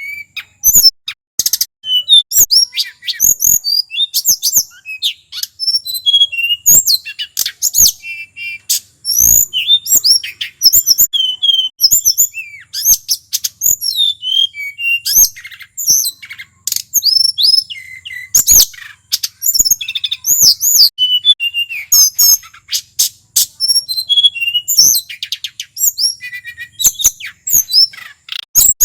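Male tledekan gunung singing continuously: a fast, varied run of high, thin whistled notes, slurs and trills with hardly a pause.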